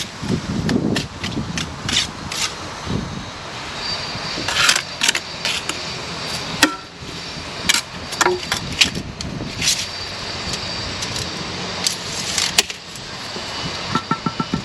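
Steel brick trowel working bricks and mortar: irregular sharp clinks, knocks and scrapes as bricks are bedded and tapped down. There is a quick run of taps about a second before the end.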